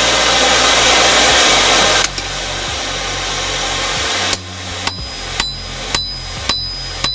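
A forge blower rushes steadily, then drops away. About four seconds in, a hammer starts striking the hot steel sword blank on the anvil, six blows about two a second, each with a short metallic ring.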